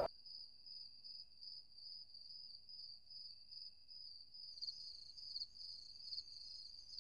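Faint crickets chirping in a steady, fast pulsing trill; a second, slightly higher cricket joins about halfway through.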